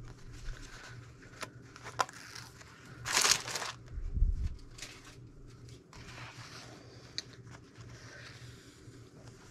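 Fabric and paper-backed fusible strips being handled and smoothed: rustling and crinkling with a few light taps. The loudest rustle comes about three seconds in, followed by a low thump.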